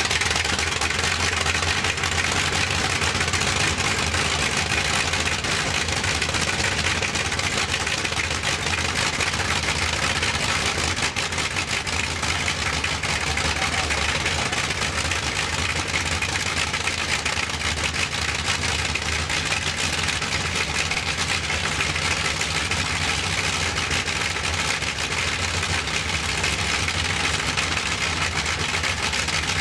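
Bristol Hercules radial aircraft engine running steadily at idle with no propeller fitted, a loud, even drone that holds constant.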